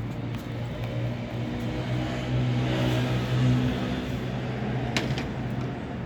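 A car engine running, its pitch rising a little past the middle and then easing back down, with a single sharp click about five seconds in.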